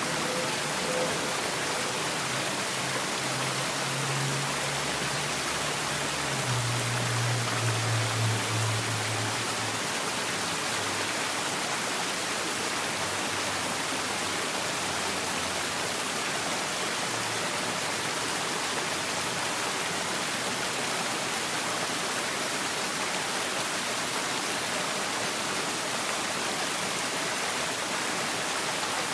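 Garden stream running over rocks: a steady rush of water. A low hum comes in about three seconds in and fades out by about ten seconds.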